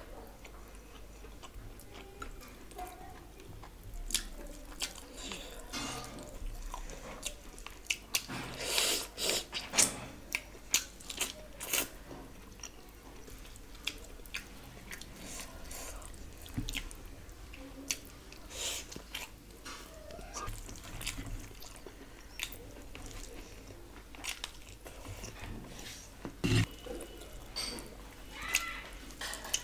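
Close-miked eating sounds: wet chewing and mouth smacks while rice and curry are eaten by hand, with scattered soft clicks. A denser, louder run of these sounds falls about a third of the way in.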